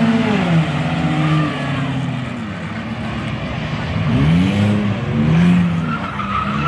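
Several enduro race cars running hard around a paved oval, their engines rising and falling in pitch as they pass one after another, with tires skidding and squealing near the end.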